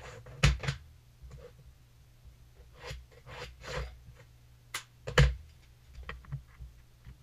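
Scattered clicks and knocks of floor tiles being handled and set down on a plywood subfloor, with the two loudest knocks about half a second and about five seconds in.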